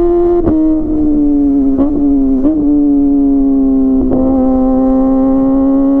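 Kawasaki ZX-25R's 250 cc inline-four through a DX Generation Pro Race full-system exhaust, running at steady high revs under way. The pitch holds high and even, with a few short breaks where it dips slightly, about half a second, two and a half and four seconds in.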